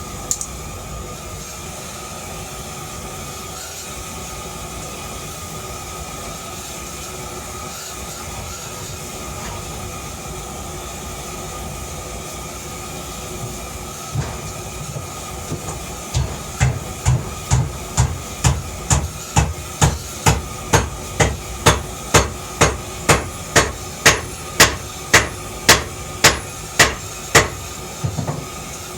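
Hammer blows on steel, a steady run of about two strikes a second starting a little past halfway and stopping near the end, over a constant machine hum.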